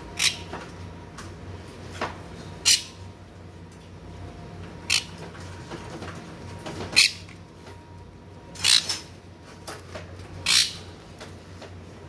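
Pet parrots giving short, harsh squawks, about seven of them at irregular intervals a second or two apart, over a steady low hum.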